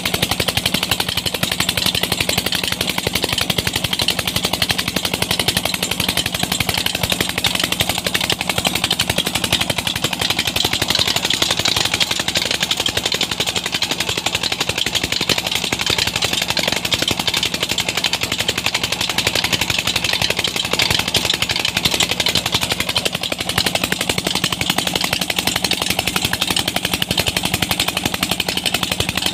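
Single-cylinder Peter (Petter-type) diesel engine running steadily under load, driving a tube-well pump by a flat belt, with a rapid, even beat of exhaust pulses.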